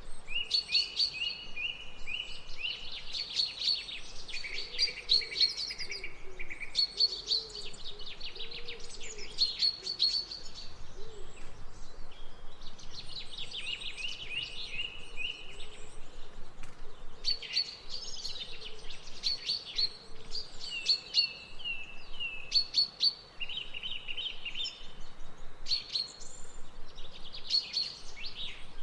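Songbirds singing: a busy chorus of overlapping high chirps, fast trills and short repeated phrases, with no break, over a light steady background hiss.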